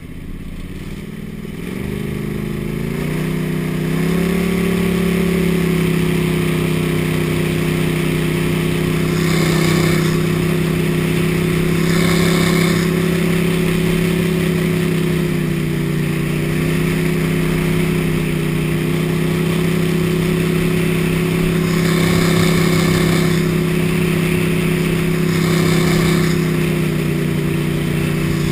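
Gator-Tail surface-drive mud motor pushing a jon boat. It throttles up over the first few seconds, then runs steady at speed with slight dips in pitch. Four short bursts of hiss rise over it along the way.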